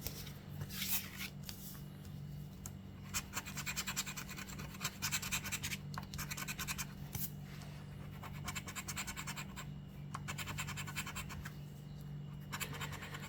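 Scratch-off lottery ticket being scratched in quick runs of short rasping strokes, in a few spells with pauses between, over a steady low hum.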